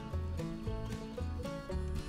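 Background music with a steady beat and short plucked notes over a repeating bass line.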